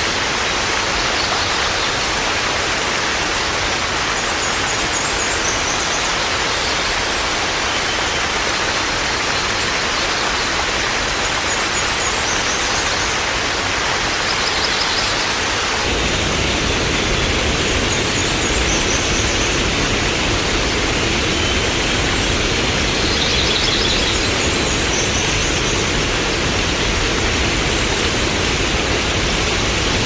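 Waterfall pouring into a pool: a steady rush of falling water. About halfway through, the sound switches to the binaural version, fuller and with much more low rumble. Brief high chirps recur every few seconds.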